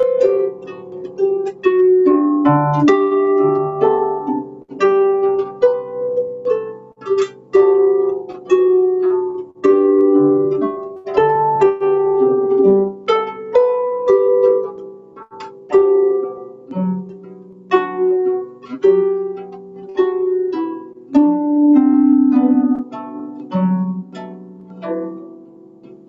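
Solo harp playing a slow melody, each plucked note ringing and dying away over lower bass notes. The playing grows softer near the end.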